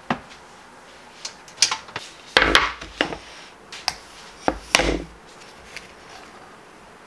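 A metal bread-maker pan knocked and set down several times on a wooden cutting board, its wire handle clinking, as the baked loaf is worked out of the pan. Two heavier thumps stand out, about two and a half and five seconds in, among lighter taps and clicks.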